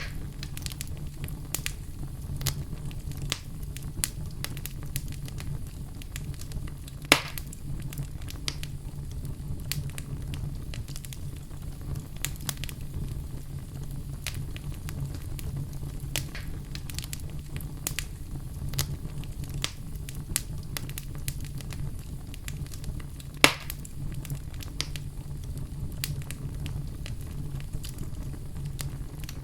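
Wood fire burning in a fireplace: a steady low rumble of flames with frequent irregular crackles and two louder pops, one about seven seconds in and one near the end.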